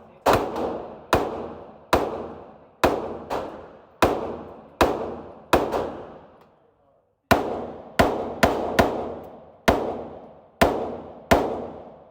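Glock 19 9mm pistol fired repeatedly: about sixteen shots in two strings, roughly one every half second to second, with a pause of about a second midway. Each shot trails off in a long echo.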